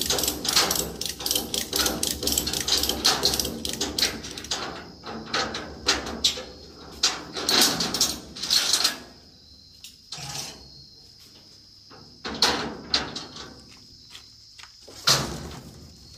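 Ratchet tie-downs on a car trailer being worked: rapid metallic ratchet clicking that slows into scattered clicks and clanks, then a few single knocks.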